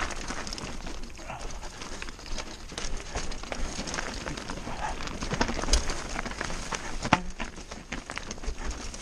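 Mountain bike riding fast down a rocky dirt trail: tyres crunching over loose stones and the bike rattling and clattering over bumps, with two louder knocks about a second and a half apart in the second half.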